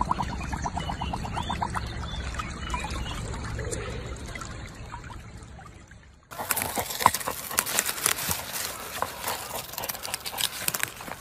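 Water trickling and sloshing around a dog lying in a shallow muddy stream. About six seconds in, this gives way to a dog digging in loose soil with its nose and paws: a run of sharp, irregular scratching and crunching of dirt.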